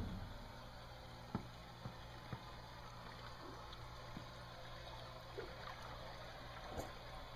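Faint lapping and gurgling of open water in an ice-free patch beside a dock, over a low steady hum, with a few soft knocks.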